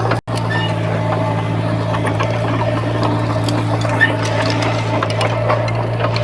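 Heavy earthmoving machinery's diesel engine running steadily, with scattered metallic clanks and knocks over the drone. The sound cuts out for a moment just after the start.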